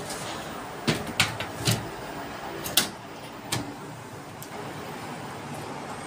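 Top cover of an LG front-loading washing machine being set down and slid into place: a handful of sharp knocks and clacks in the first few seconds, then only steady background noise.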